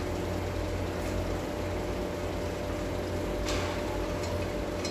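Steady mechanical hum with a constant thin tone over a low drone, and one brief noise about three and a half seconds in.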